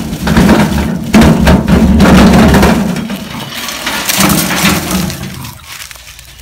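Loaded wheelbarrow pushed over rough, dry ground: the wheel rumbling and the tray and handles clattering and knocking, dying away near the end.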